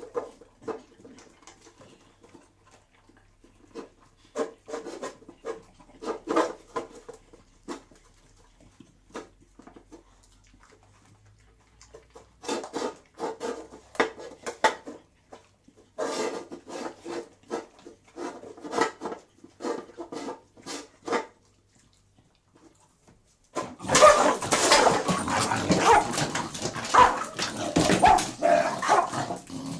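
Two beagles at their food: short bursts of sniffing and eating noises. About three-quarters of the way through, a dog fight breaks out suddenly with loud growling that runs to the end.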